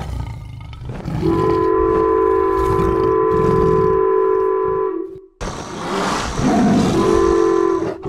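Train horn sounding a long, steady blast over the low rumble of an approaching train, cutting off suddenly about five seconds in. A rough, noisy creature roar follows, and the horn sounds again near the end.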